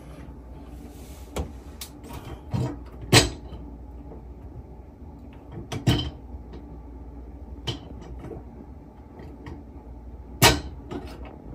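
Handling noise of sink drain parts under a bathroom sink: scattered sharp knocks and clunks, the loudest about three, six and ten and a half seconds in, over a low steady hum.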